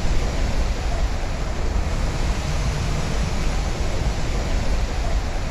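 Steady rushing noise with a deep rumble underneath.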